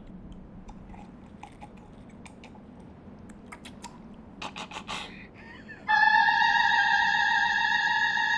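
Soft scattered clicks and a few sharper clicks, then about six seconds in a woman's voice suddenly comes in on a single loud, high operatic note, held steady.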